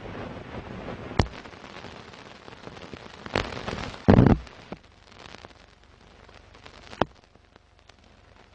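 Old-film countdown crackle: a steady hiss scattered with sharp pops and clicks, with a louder thump about four seconds in.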